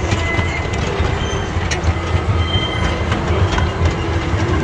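Miniature train rolling along its track, heard from aboard: a steady rumble of wheels on rails, with a few brief, faint wheel squeals and occasional clicks over rail joints.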